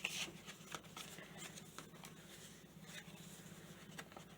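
Paper pages of a handmade junk journal rustling and ticking softly as they are handled and turned, with a brief louder rustle at the start. A faint, steady low hum runs underneath.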